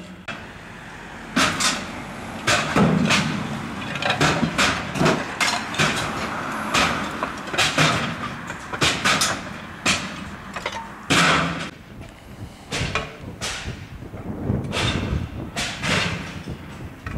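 Roof demolition: old roof tiles and debris dropped from the roof into a steel container, a steady run of irregular crashes and thuds, one or two a second.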